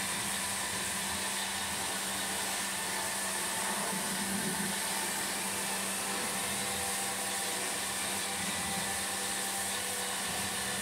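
Pressure washer running steadily: a constant motor hum under the hiss of the water jet spraying a car wheel and tyre.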